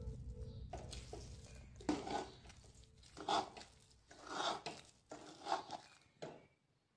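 A steel spoon scraping and stirring thick sesame-and-jaggery gajak mixture in a steel kadhai: a series of short scrapes about a second apart.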